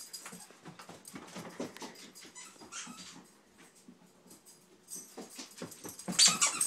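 Excited greyhound moving about on carpet, with faint scuffs and clicks of its steps and low whimpers. About six seconds in, a run of short high-pitched squeaks starts and grows louder.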